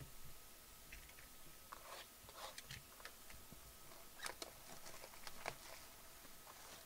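Cellophane shrink wrap on a sealed trading-card hobby box crinkling and tearing as it is peeled off by hand: faint scattered crackles and rustles, a little louder about four and five and a half seconds in.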